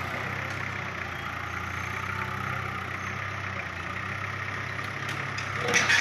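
Komatsu forklift's engine running steadily as the forklift drives up to the truck bed. Near the end come a few sharp metallic clanks, as its forks meet the pallet.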